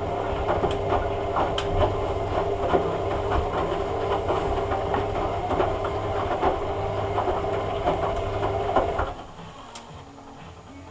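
Hoover A3786 Logic Deluxe washing machine running: a steady motor hum with many rattling clicks, which cuts out abruptly about nine seconds in, leaving a quieter hum.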